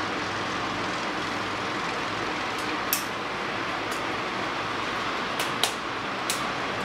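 Steady hiss of heavy rain and hail, with several sharp ticks of hailstones striking a hard surface close by, the loudest about three seconds in.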